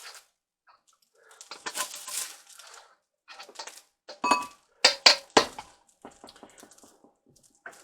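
Kitchen handling sounds: soft rustling, then a quick run of sharp knocks and clinks from dishes and utensils, one with a short ringing tone, about four to five seconds in.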